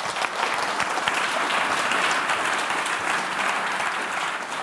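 Audience applauding at the close of a lecture: a dense, steady clapping from many hands, easing slightly near the end.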